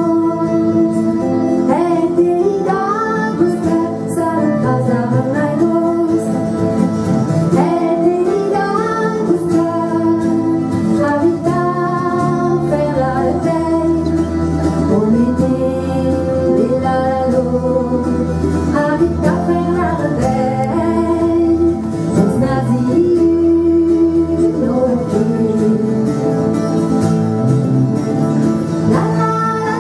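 A woman singing a Breton song in a clear, sustained voice, with acoustic guitars and other plucked strings accompanying her live on stage.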